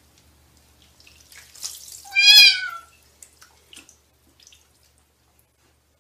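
A wet cat meowing once, a single long wavering call about two seconds in: a cat's complaint at being held in bath water.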